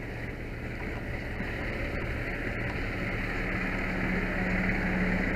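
Fire engine's diesel engine running as the truck pulls up alongside, growing steadily louder, with a steady low drone coming in near the end.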